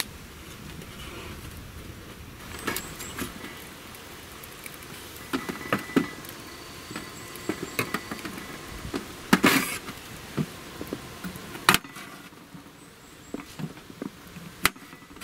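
A kitchen knife slicing a carrot on a camp table, with a series of separate sharp knocks and clicks as the blade hits the tabletop and as vegetables and utensils are handled. The knocks cluster in the middle and thin out toward the end, ending with one sharp click.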